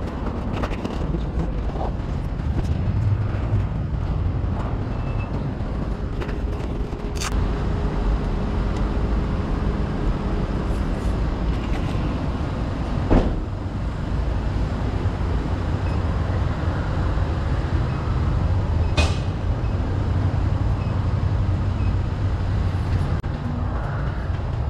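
Steady low rumble of road vehicles and 50cc moped engines, with three sharp knocks spread through it.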